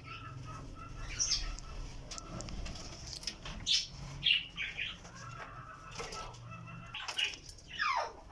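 Budgerigars chirping: a run of short, high chirps about once a second, with one longer call that falls steeply in pitch near the end.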